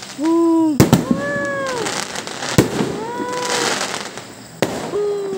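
Aerial fireworks bursting, with a few sharp bangs spread over the seconds. Between the bangs come drawn-out exclamations from onlookers, rising and falling in pitch.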